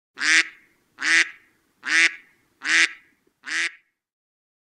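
A bird giving five short quacking calls, about one a second, evenly spaced; the last is a little quieter.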